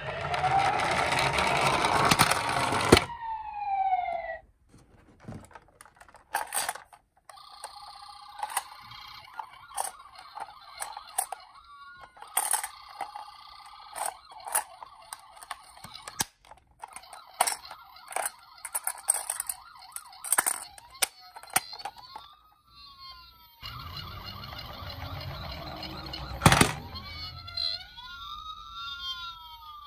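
Electronic siren sound from toy ambulance minicars played through their small speakers: a rising then falling glide in the first few seconds, and later repeated rising-and-falling wails, mixed with rattly noise and sharp clicks of the plastic toys.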